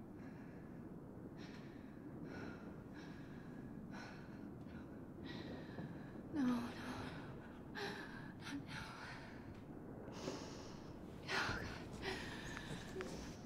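A woman breathing heavily and unevenly, a quick run of ragged breaths with sharp gasps about six and eleven seconds in.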